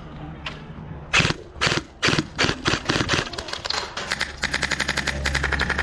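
Airsoft guns firing: scattered single shots, then a rapid full-auto string of about ten shots a second near the end.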